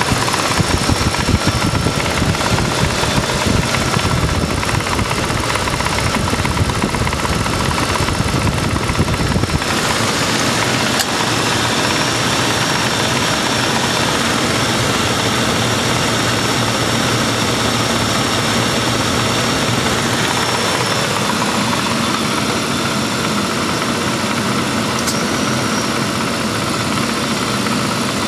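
Steady road and engine noise inside the cabin of a 1995 Lincoln Town Car driving at road speed, with its 4.6-litre V8 running underneath. The low rumble thins out about ten seconds in.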